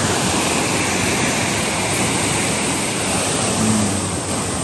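Steady rush of river water spilling over a small weir.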